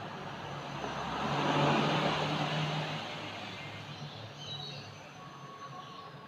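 A road vehicle passing by, its noise and low hum swelling to a peak about two seconds in and then fading away.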